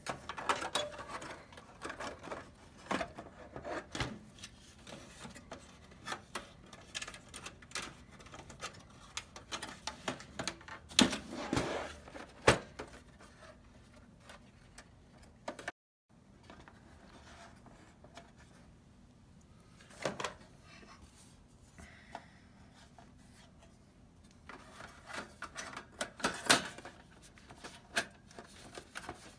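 Clicks, taps and scrapes of a PS4 console's parts being handled and fitted back together: the motherboard lowered into the metal chassis and a sheet-metal shield laid over it. The loudest knocks come in a cluster about eleven to twelve seconds in and again about twenty-six seconds in, and the sound cuts out for a moment just past halfway.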